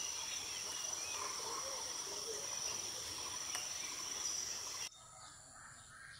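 Outdoor ambience with a steady, high-pitched insect drone over a background hiss, cutting off suddenly about five seconds in to quieter ambience with faint scattered calls.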